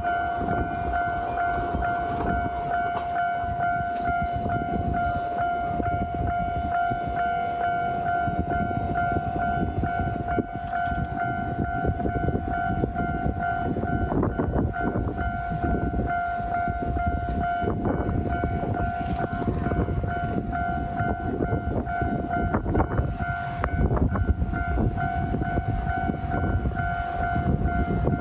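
Japanese level-crossing alarm sounding at one steady pitch while a train passes over the crossing, a constant low rumble with irregular clacks of wheels over the rails.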